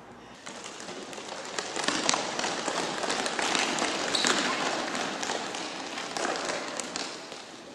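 Applause from a crowd with some voices mixed in, building up about half a second in and slowly fading toward the end.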